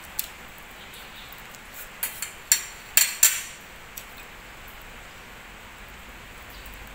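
A metal spoon clinking against a ceramic plate: a handful of light, sharp clinks in the first four seconds, the loudest three close together around two and a half to three seconds in. After that there is only a low room hiss.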